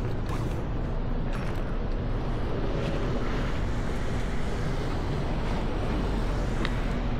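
Street ambience: a steady low rumble of car traffic, with a car passing through the intersection.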